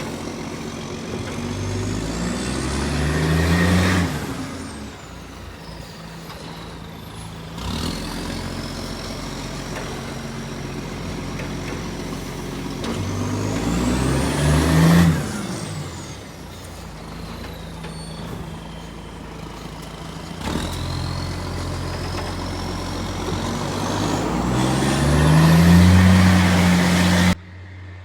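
Garbage truck's diesel engine, which has an exhaust leak, pulling hard three times, its pitch climbing with each pull until it drops away sharply. A high whine rises with each pull and then falls off after it.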